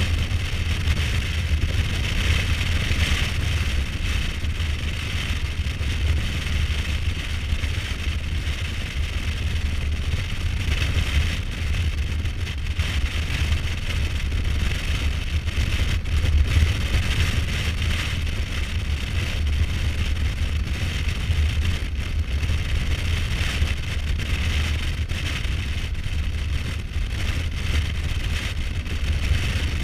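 Kawasaki Versys 1000's inline-four engine running steadily at cruising speed on a dirt road, under a continuous rush of wind noise.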